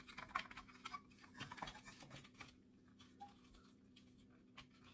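Faint clicks and light rubbing of small plastic parts being handled, as a thin tube is fitted onto the small pump inside an open soap dispenser housing. The clicks are scattered through the first half, with one more near the end, over a low steady hum.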